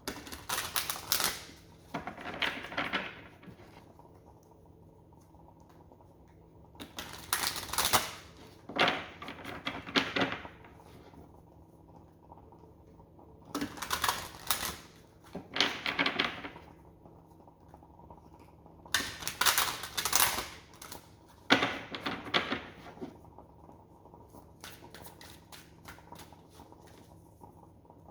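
A deck of cards being shuffled by hand: short runs of rapid flicking and slapping, about eight of them, each a second or so long and mostly in pairs, then lighter, scattered card handling near the end.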